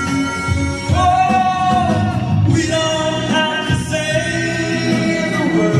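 Karaoke singing: a contestant's voice over a backing track played through a loudspeaker, holding long notes.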